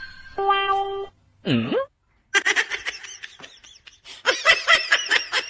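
A short steady tone about half a second in, then a quick swooping glide, then about three seconds of rapid, high-pitched giggling laughter that grows louder near the end.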